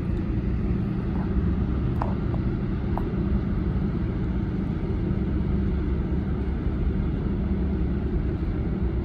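Steady low engine rumble with a constant droning hum.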